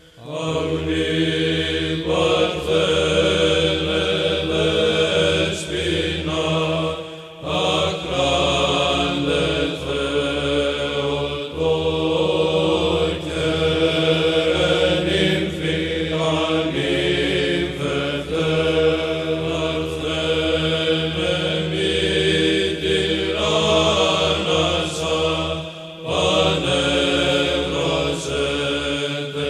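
Byzantine Orthodox chant: voices singing a slow melody over a steadily held drone note. The singing breaks off briefly about seven seconds in and again near the end.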